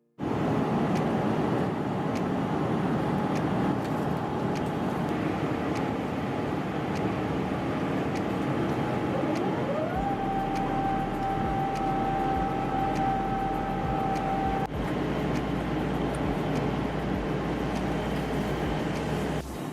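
Cabin noise of an Airbus A350-900 with its Rolls-Royce Trent XWB engines running at high power during the takeoff roll and climb, a loud, steady roar with faint regular knocks. About nine seconds in, a whine rises and then holds a steady tone until it cuts off near fifteen seconds.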